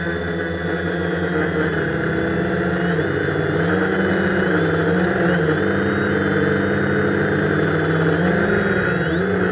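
Quadcopter's electric motors and propellers whirring loudly close to the onboard camera. The pitch of the whine rises and falls as the throttle changes.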